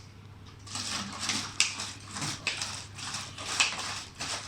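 Water in a two-bottle tornado-in-a-bottle, swirled and gurgling in irregular gulps as it drains through the drilled caps from the top plastic bottle into the bottom one.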